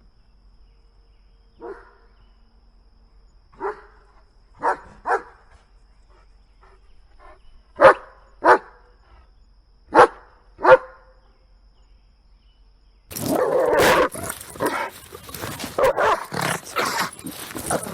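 A dog barking in short, separate barks: two single barks, then three pairs of louder barks. Near the end an abrupt cut brings in a louder, busier stretch of barking with a noisy background.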